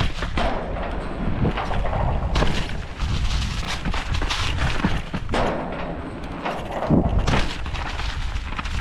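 Specialized Kenevo SL 2 electric mountain bike riding fast over rough trail: constant tyre and frame rattle with repeated sharp knocks and thumps over roots and rocks, and wind rumbling on the microphone.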